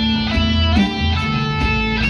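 Music led by guitar, with plucked notes changing about every half second over a steady bass.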